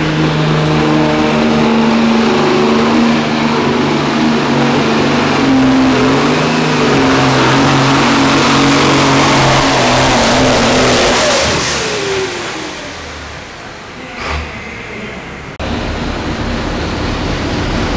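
Diesel pulling tractor's engine running hard at high revs while dragging the weight sled, its pitch wavering, then falling away about twelve seconds in. A single knock follows, and near the end another tractor's engine starts up abruptly and runs steadily.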